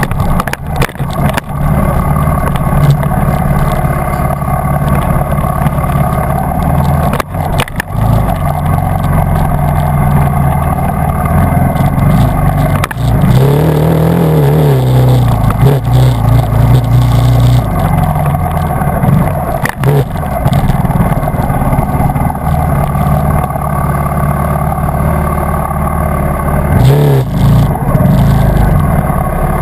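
Dirt bike engine running along a rough trail, its pitch rising and falling with the throttle, with a marked rev up and back down about halfway through and another near the end. A few sharp knocks from the bike bouncing over the ground.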